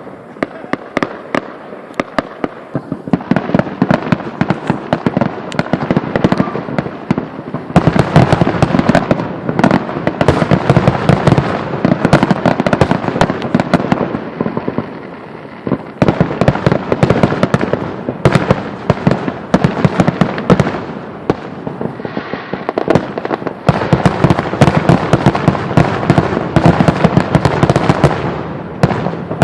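Fireworks crackling and popping in a dense, rapid stream of sharp reports. The stream grows louder about eight seconds in, again around sixteen seconds, and once more near the end.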